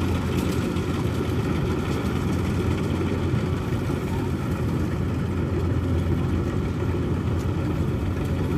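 Rice combine harvester's engine running steadily, a constant low drone.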